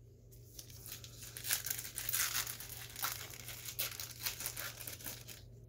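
A foil trading-card pack wrapper being torn open and crinkled in the hands: a run of irregular crackles and rips that starts about half a second in and stops shortly before the end.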